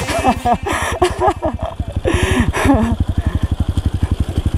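Trail bike's single-cylinder four-stroke engine running at low speed, a steady chug of about a dozen firing pulses a second.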